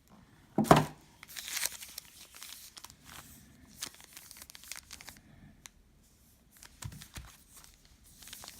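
Trading card packaging being torn open and handled: a sharp tear about a second in, the loudest sound, then scattered crinkling of the wrapping, with a few more crinkles near the end.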